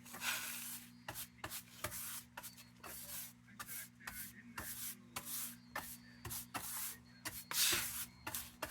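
Repeated scraping and brushing strokes as nest debris and dead insects are cleared out of an old kerosene heater. The strokes are short and irregular, about one to two a second, with a longer, louder scrape near the end.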